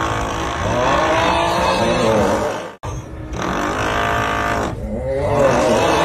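The 'uuuugghhh' snoring meme sound, a long drawn-out voice whose pitch wavers, over a steady drilling noise. The loop cuts off abruptly about three seconds in and starts over.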